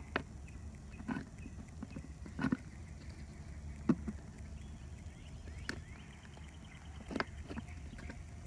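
Thin plastic soda bottle being handled: a few irregular crackles and knocks as the cut, inverted top of a 2-liter bottle is worked into the bottle's body, over a steady low background hum.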